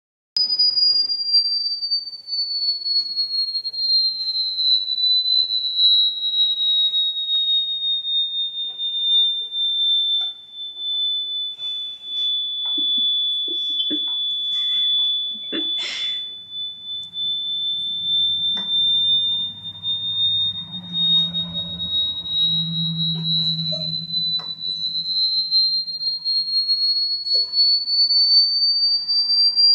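A continuous high-pitched pure whistle tone, a played sound effect, slowly gliding down in pitch over the first half and back up over the second. A few faint clicks and fainter low sounds lie underneath in the middle.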